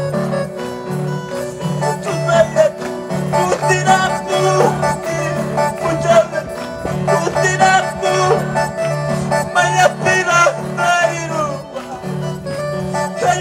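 Live band music with guitar over a steady, repeating bass line, played loud through a PA system, with a melody that slides between notes.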